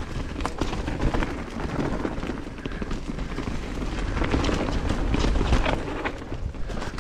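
Mountain bike being ridden along a dirt trail: the tyres roll over the ground while the chain and frame rattle and clatter over bumps, with wind rumbling on the microphone.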